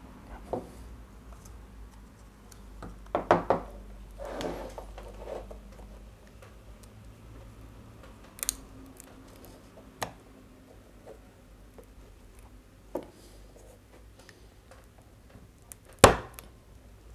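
Linear bearings and a small metal carriage block handled and pressed together by hand: scattered clicks and knocks of metal parts, with a short cluster of knocks a few seconds in, some rustling, and one sharp click near the end that is the loudest.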